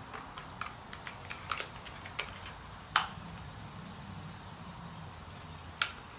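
Scattered light clicks and taps of plastic makeup cases and applicators being handled, the sharpest about three seconds in and again near the end.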